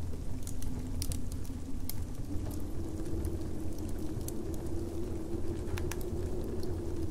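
Winter ambience: a steady low wind rumble with a faint howl that wavers in pitch, and scattered sharp pops and crackles from a wood fire.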